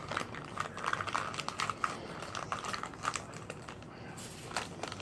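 Crisp, irregular crunching of baked Argo laundry starch chunks being chewed, thinning out after about three seconds.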